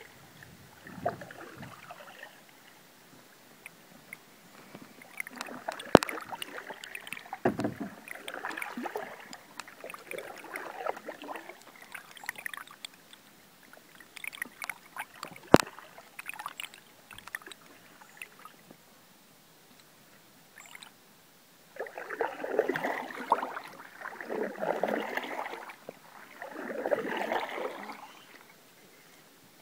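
Canoe paddle strokes in the river, a swishing splash about every two seconds, coming in two runs with a quiet pause between. Two sharp knocks stand out, one early and one about halfway through.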